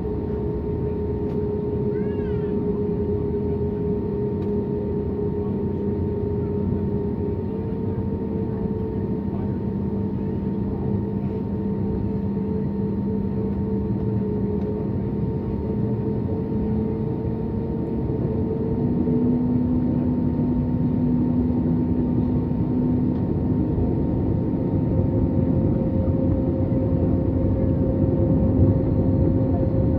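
Airbus A320's jet engines running at taxi power, heard from inside the cabin: a steady hum whose tones step up in pitch and grow a little louder about two-thirds of the way through.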